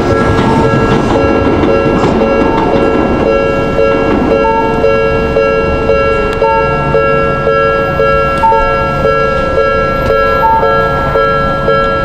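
Japanese railway level-crossing warning bell ringing in a quick, even repeating pattern while the signal lamps flash. A passing train's rumble fades out over the first few seconds.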